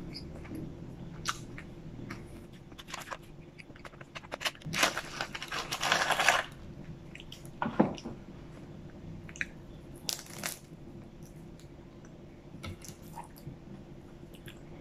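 Close-miked eating sounds: small wet mouth clicks from chewing, then the crisp fried crust of a strawberry custard pie being handled and broken apart. There is a dense crackly rustle about five seconds in, and sharp cracks follow a few seconds later.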